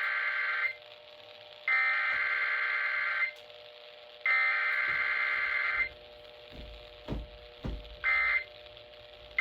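Emergency Alert System SAME header: harsh digital buzzing data bursts, the last of three about 1.6 s long, sent with short gaps between them. After two dull thumps, a much shorter burst of the same buzzing comes near the end.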